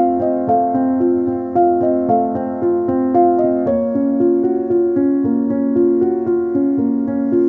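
Background music: a keyboard melody with notes about twice a second over held chords, the harmony moving to a new chord about three and a half seconds in.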